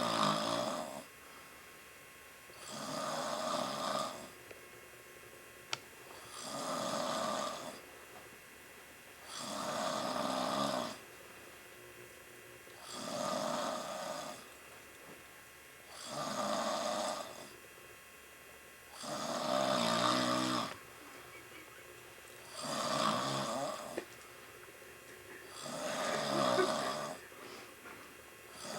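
A sleeping man snoring steadily: about nine rasping snores, one roughly every three and a half seconds, each lasting over a second.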